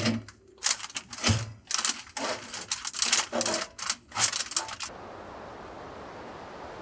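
Foil-faced insulation crinkling and clicking as it is pressed by hand against the log wall behind a stove chimney, a quick irregular series of rustles. It stops about five seconds in, leaving a steady hiss.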